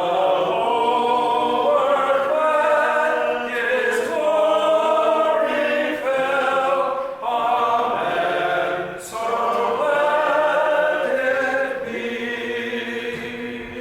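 A congregation singing unaccompanied, with many voices in long held phrases and short breaks between them.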